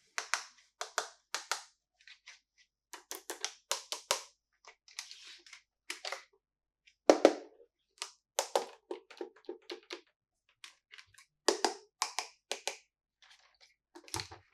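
Hands unboxing a plastic toy playset: a run of sharp plastic clicks, taps and crinkles from the packaging and toy pieces being handled, the loudest about halfway.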